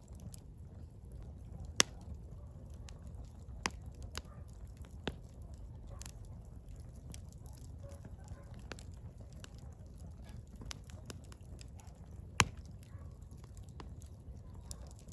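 Firewood burning, crackling with many small scattered snaps over a low rumble. Two sharp, loud pops stand out, one about two seconds in and one near the end.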